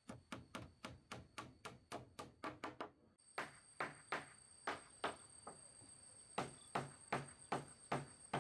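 A steady run of sharp knocking strikes, about three a second at first and then about two a second after roughly three seconds. A steady high tone comes in at the same point.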